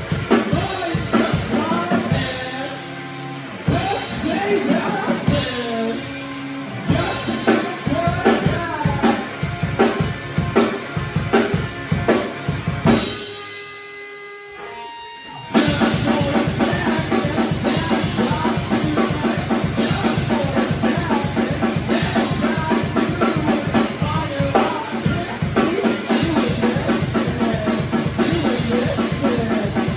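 Live band playing a song with the drum kit to the fore. About halfway through, the drums drop out for a couple of seconds, leaving a quieter held chord. Then the full band comes back in with fast, even drumming.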